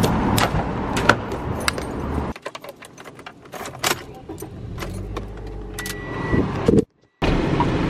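Car keys jangling and clicking in the door lock, then a sudden drop to the quieter car interior, where the keys jangle and click again in the ignition. Near the end a low engine hum comes up and a short electronic beep sounds.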